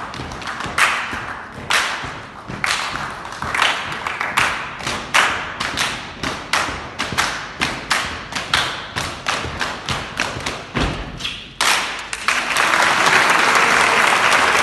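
An ensemble clapping a rhythmic hand-clap percussion piece, the sharp claps coming more densely as it goes on and ending with a low thud about eleven seconds in. Audience applause then breaks out and carries on.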